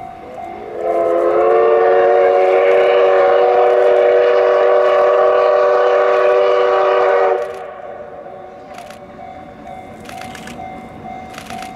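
Steam locomotive whistle, likely the C58 363's, blown in one long blast of about six seconds. It rises briefly in pitch as it opens, holds a steady chord of several tones, then cuts off sharply.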